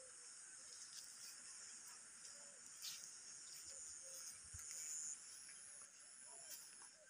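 Faint, steady high-pitched chirring of insects in the scrub, with a brighter tone joining for about a second near the middle.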